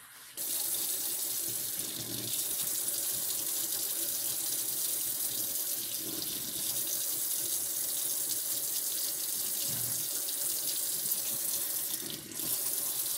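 Kitchen tap running steadily into a stainless steel sink, the stream splashing into and over the base of a moka pot held under it. The water comes on about half a second in.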